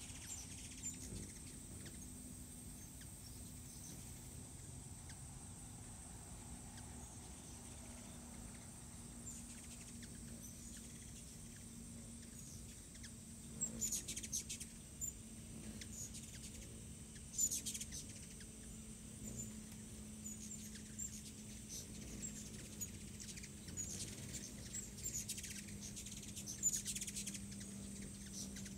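Hummingbirds chattering around feeders: short, high, squeaky chip-and-chatter bursts, several of them from about halfway on, over a steady low hum.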